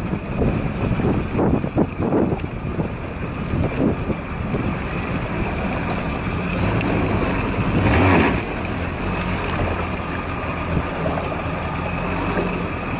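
Yamaha SVHO personal watercraft's supercharged four-stroke engine running steadily at low, no-wake speed, with water sloshing against the hull and wind on the microphone; a louder rush of water or wind about eight seconds in.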